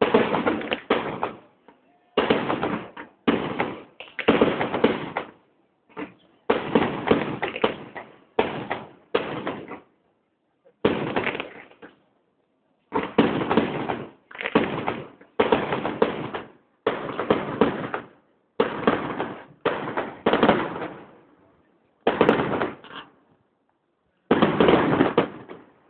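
Fireworks bursting overhead in quick succession, a bang about every second or so, each dying away with an echo, with a short lull about halfway through.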